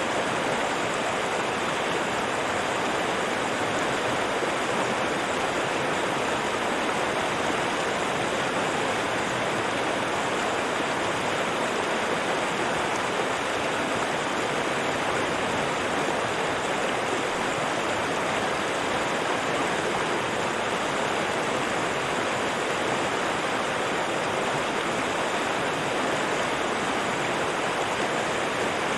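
River water flowing and rushing in a steady, unbroken wash.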